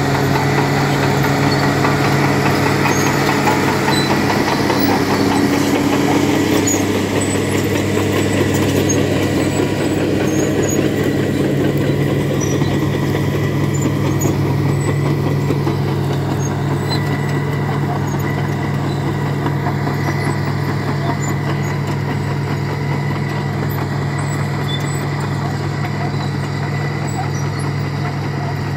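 Caterpillar D6 crawler tractor's diesel engine running steadily under load while pulling a two-furrow reversible plough, growing slightly fainter toward the end.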